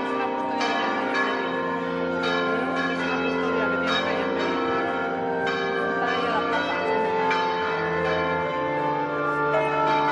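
Church bells pealing, struck about once a second, the strokes overlapping into continuous ringing.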